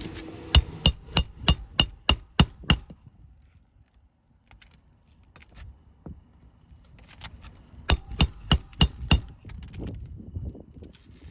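A hammer driving roofing nails into a replacement asphalt shingle. It strikes about eight times, three or four blows a second, each with a short metallic ring, then pauses for about five seconds before five more strikes.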